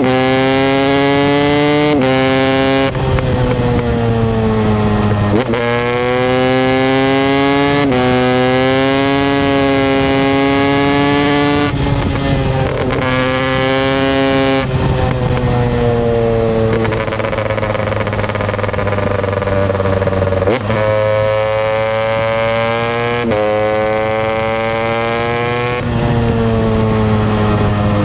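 Husqvarna 250 TEI's fuel-injected single-cylinder two-stroke engine running under throttle. Its pitch climbs and falls, with sudden breaks and jumps in pitch several times, as the bike is ridden through the gears.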